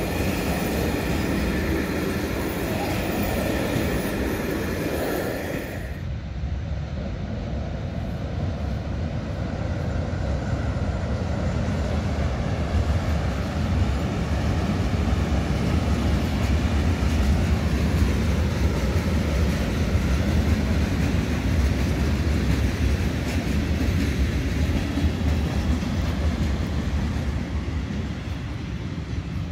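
Railway train running on the track, a heavy steady low rumble. For the first six seconds high steady tones ring over it, then the sound changes abruptly. After that the rumble grows louder and then fades away as the train passes.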